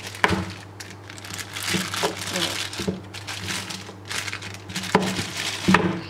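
Plastic packaging crinkling and rustling as a power adapter brick is pulled from its box and unwrapped, in irregular bursts, with a few light knocks on the desk.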